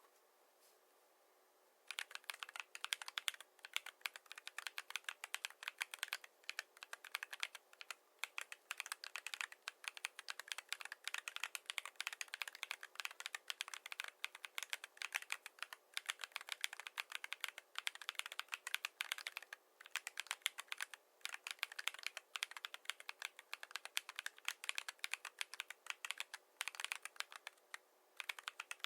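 Fast, continuous typing on a mechanical keyboard with AKKO V3 Cream Blue Pro tactile switches and PBT MDA-profile keycaps, the board tape-modded with Poron case foam. The keystrokes start about two seconds in, with a few brief pauses.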